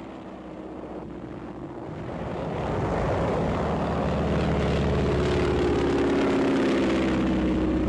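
Propeller aircraft engine droning as a low-flying plane passes on a strafing run. It grows steadily louder from about two seconds in and then holds loud.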